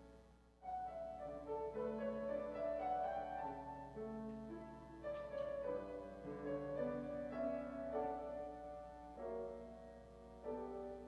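Slow instrumental keyboard music: a melody over held chords, which breaks off briefly just after the start and then resumes.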